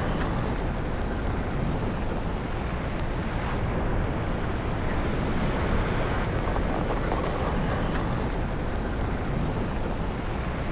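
Steady deep roar and rush of an erupting volcano's lava, a wind-like noise with a heavy rumble underneath. The hiss dulls for about two seconds around four seconds in.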